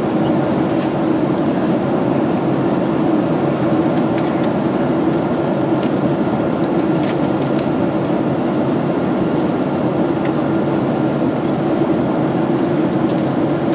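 Steady cruise cabin noise inside a Boeing 767-300: the even rush of air over the fuselage blended with the hum of its Rolls-Royce RB211 engines, heard from a window seat over the wing.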